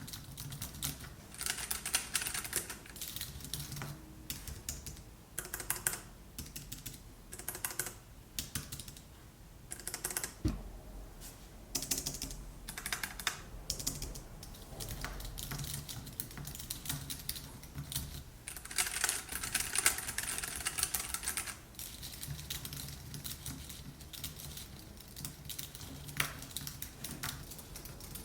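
Typing on a computer keyboard: runs of rapid keystrokes with short pauses between them.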